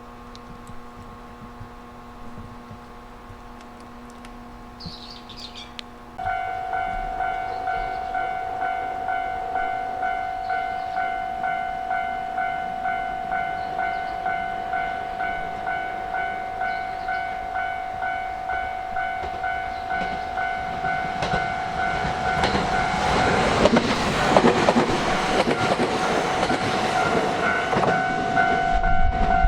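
A level-crossing alarm starts abruptly about six seconds in, a steady repeating electronic ding about one and a half times a second. From about twenty seconds in, a freight train hauled by EF210 and EF510 electric locomotives comes up and passes, its rumble and wheel noise growing loud over the bell.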